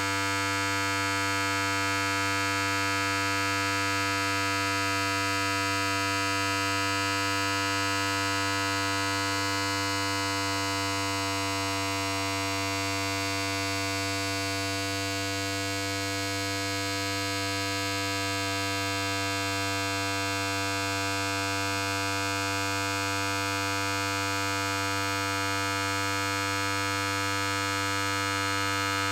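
Electric hair clipper running without a break: a steady, even buzz with a strong low hum.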